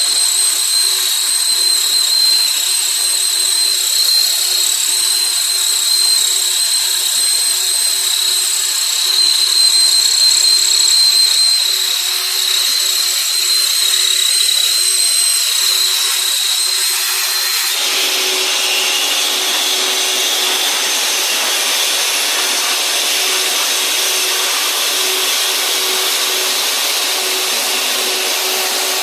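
Industrial metal-cutting machine running with a steady high whine over a hum; about two-thirds of the way through the whine stops and the sound becomes a steadier, broader hiss.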